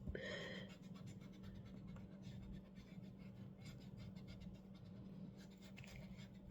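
Faint scratching of a pencil drawing many small curved strokes on paper.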